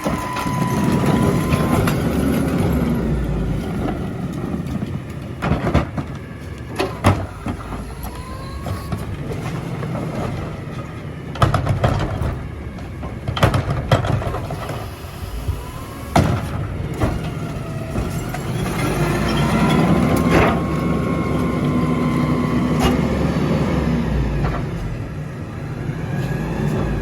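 Recycling garbage truck running, with its hydraulics whining and changing pitch near the start and again about two-thirds of the way through, as in a packing cycle. Sharp clanks and bangs come several times in between.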